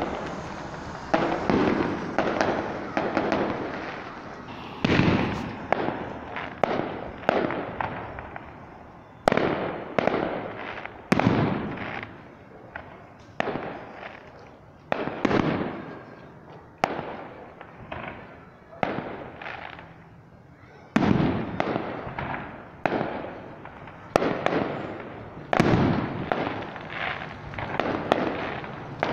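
Aerial fireworks display: a fast, irregular string of shell bursts, each sharp bang trailing off in a rolling echo, with a short lull about two-thirds of the way in.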